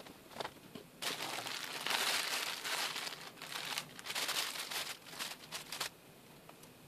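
Plastic wrapper of a pack of cotton wool crinkling as it is handled, with a few short bursts over about five seconds, stopping suddenly near the end.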